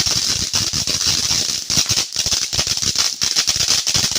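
A Brain Buster consumer firework crackling: a dense, continuous stream of rapid pops and crackles over a hiss, starting to thin out near the end.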